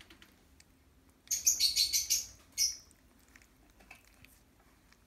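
Newborn Xoloitzcuintli puppies squeaking: a quick run of high squeaks about a second and a half in, then one more shortly after.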